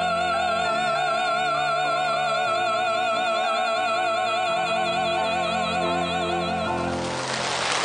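A singer holds the final note of a Korean-language ballad with a wide, even vibrato over sustained orchestral accompaniment, for about seven seconds. The note ends near the end and gives way to a brief noisy swell.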